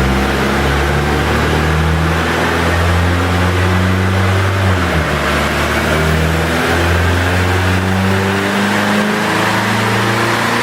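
Tuned Mercedes-Benz C200 turbocharged four-cylinder engine revving under load on a dyno, its pitch climbing steadily through the rev range, with a brief dip about halfway.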